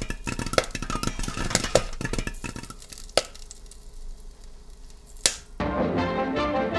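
Popcorn popping: scattered sharp pops, thick at first and thinning to a few single pops. Music with brass starts near the end.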